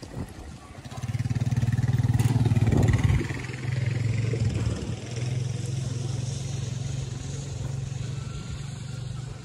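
Light aircraft taking off, its piston engine running at a steady pitch. It comes in about a second in and is loudest over the next two seconds.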